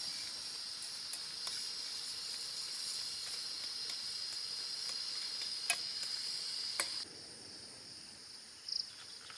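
Forest insects, crickets or similar, keeping up a steady high-pitched chorus that drops away abruptly about seven seconds in, leaving a fainter hum. Two faint clicks come just before the drop.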